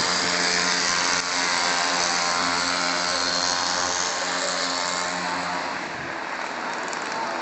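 A motor engine running steadily as a drone over a hiss, which stops about six seconds in.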